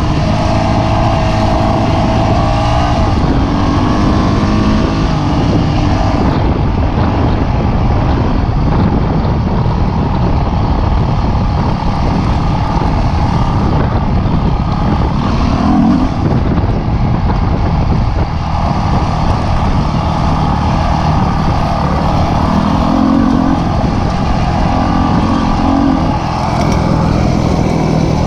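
Dirt bike engine running while riding, its pitch rising and falling with the throttle under a dense rushing noise.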